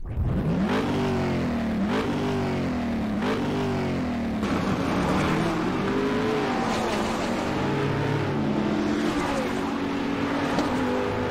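Race car engine sound effect accelerating hard through the gears. The pitch climbs and drops back with each shift about once a second, then holds a high, steadier note at speed.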